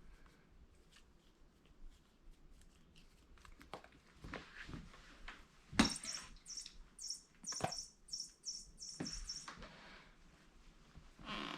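Chirping of a noisy bird cat toy, a quick run of short high chirps from about halfway in, mixed with scattered knocks and scuffles as a cat bats and grabs at it.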